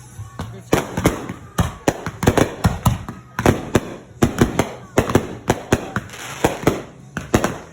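Fireworks going off in a rapid, irregular string of sharp cracks and pops, several a second.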